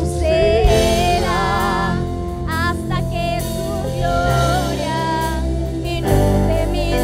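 Live worship band playing: voices singing with vibrato over keyboard, electric guitar and drums.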